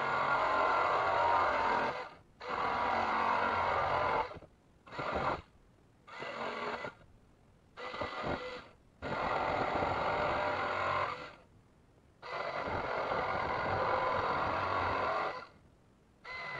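Corded jigsaw cutting through the van's steel roof panel, in about eight runs of one to three seconds with short pauses between them.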